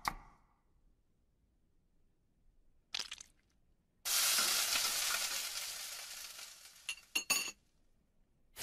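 Food sizzling in a frying pan: a loud hiss that starts suddenly about four seconds in and slowly fades, with a few short clinks near the end. Before it there is little but one brief burst of the same hiss about three seconds in.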